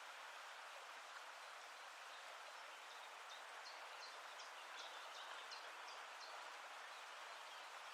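Faint, steady hiss of water, with a small bird calling a quick run of short high notes, about three a second, from about three seconds in to a little past six seconds.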